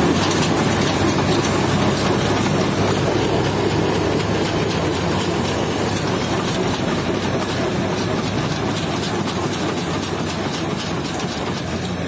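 Heavy diesel engine running hard under load as a truck stuck in mud is towed out: a steady, loud rumble that eases slightly near the end.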